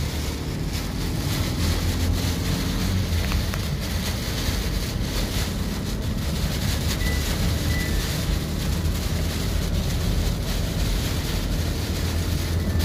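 Heavy rain pelting a moving car's windscreen and roof, heard from inside the cabin, over a steady low rumble of the car on the wet road.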